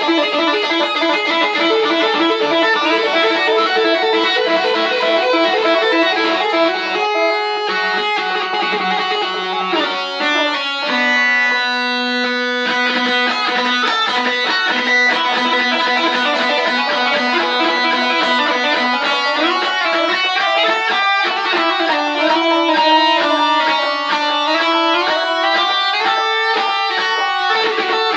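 Electric guitar played through a tape echo unit: fast lead runs of high notes, each note trailing repeats, with one note held for about a second and a half around eleven seconds in.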